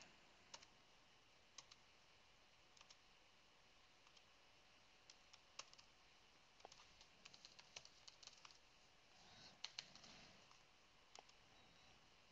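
Faint computer mouse clicks and keyboard typing: a few scattered single clicks, then a quick run of keystrokes in the middle, then a few more clicks.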